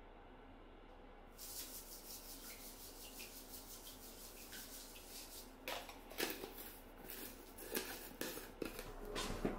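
Epsom salt crystals being taken from a jar and scattered into bathwater: faint gritty rustling and light ticks that start about a second and a half in, with a few sharper clicks in the second half.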